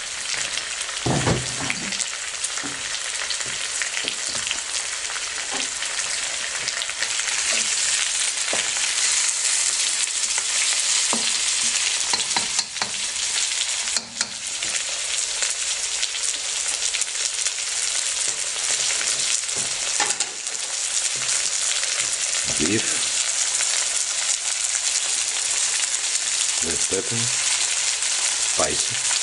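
Sliced beef and onion sizzling steadily in a hot wok, with occasional scrapes and knocks of a wooden spatula stirring the meat.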